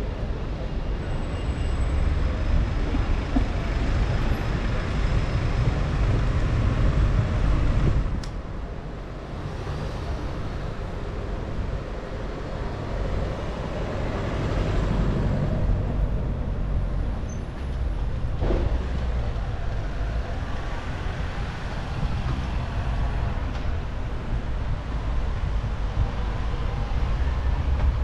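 Road traffic on a busy high street, heard from a moving bicycle: cars, vans and a double-decker bus running past over a steady low rumble. There is a brief dip about a third of the way in, with a single click.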